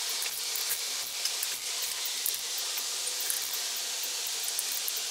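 Steady hiss with faint, irregular light clicks from a hand socket ratchet snugging a connecting-rod cap bolt, part of tightening the rod bolts evenly in stages.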